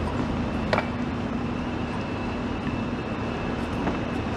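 Steady city traffic noise with a constant low engine hum, and one sharp click about a second in.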